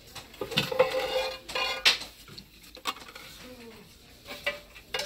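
Metal cookware clanking and ringing as pots and lids are handled on a store shelf, with a couple of sharp knocks in the first two seconds and a lighter one near the end.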